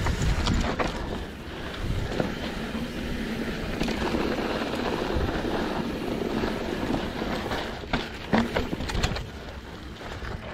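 Mountain bike running down a dirt downhill trail: a steady rush of tyre and wind noise on the camera mic, with sharp knocks and rattles from the bike over bumps, several of them near the end.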